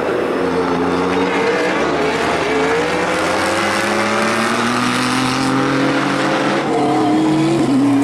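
Nissan GT-R Nismo GT3 race car's twin-turbo V6 accelerating hard past, its engine pitch rising steadily, then dropping sharply near the end as it shifts up a gear.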